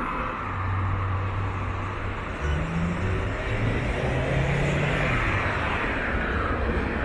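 Road traffic: the steady rumble and tyre hiss of vehicles passing, with an engine tone rising about two and a half seconds in.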